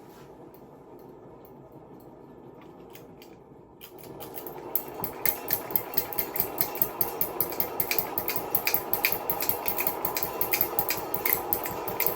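Old ceiling fan with bad bearings running with a loud rattling clatter of rapid, regular clicks. About four seconds in it gets louder and the clicks come faster.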